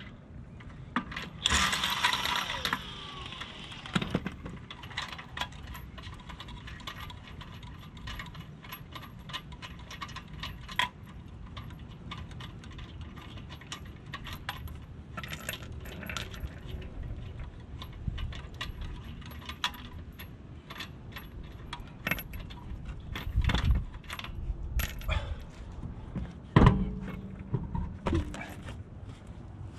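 Steel lug nuts, a wrench and a wheel spacer clinking and clattering against one another in scattered sharp clicks as the spacer is fitted to the hub. There are a few louder clanks, about two seconds in and again near the end.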